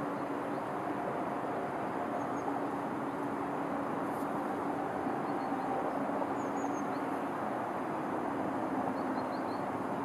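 Steady low drone of distant motor traffic, an even hum with no change in level. A few faint high bird chirps come through, about a third of the way in, around two thirds of the way in, and near the end.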